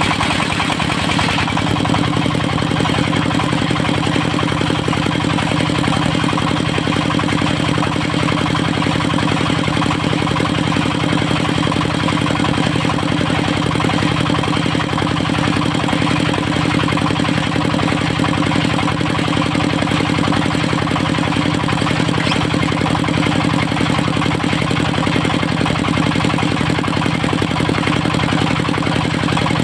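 Engine of a portable circular-saw sawmill running steadily at a constant speed, with a slight change in tone about a second and a half in.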